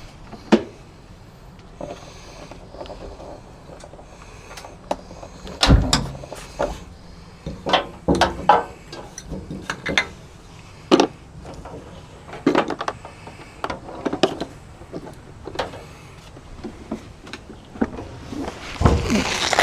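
Irregular knocks, clunks and rattles of camping fridges and gear being handled and shifted into place. A heavy thump comes about six seconds in, and a louder run of knocks near the end.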